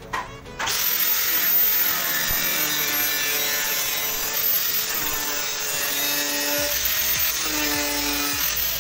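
Angle grinder cutting into the sheet-metal body of an electrical panel enclosure. It starts up about half a second in, runs steadily under load with a high whine, and eases off near the end.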